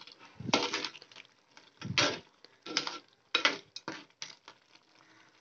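A steel spoon scraping and knocking against a heavy black pot while stirring crab masala, in about six short strokes that stop near the end.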